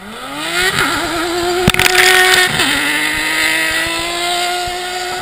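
Ice-racing car's engine revving hard as the car slides past close by: the pitch climbs steeply, wavers, dips briefly, then holds steady at high revs. A sharp knock comes just under two seconds in.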